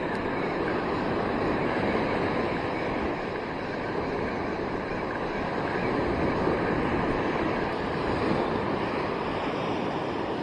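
Gulf surf breaking and washing up the beach in a steady rush that swells and eases, with wind on the microphone.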